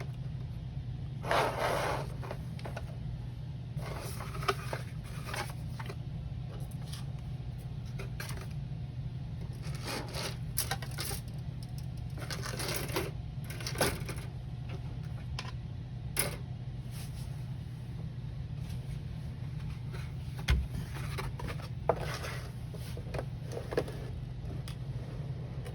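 Scattered rustles and light clicks of a paper instruction booklet being handled and its pages turned, over a steady low hum.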